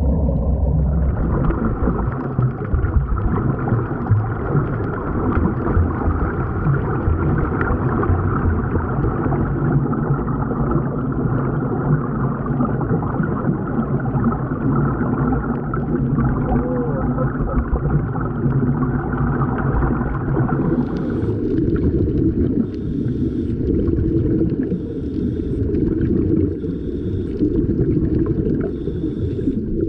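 Muffled underwater rumble and bubbling from air streaming out of sea-walking helmets, heard through a submerged camera. About twenty seconds in, the sound turns duller.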